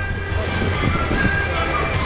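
Music with long held notes playing over the steady scraping and rumble of many ice skates on a crowded rink, with voices of the crowd mixed in.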